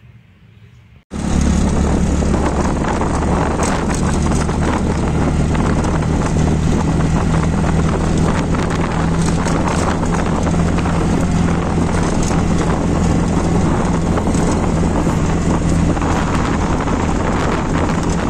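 Auto rickshaw engine running steadily at road speed, heard from inside the open passenger cabin with wind and road noise; it cuts in abruptly about a second in.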